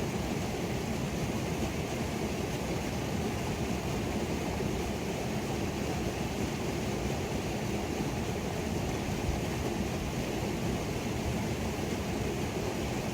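Creek waterfall rushing steadily: a constant, deep wash of falling water with no breaks.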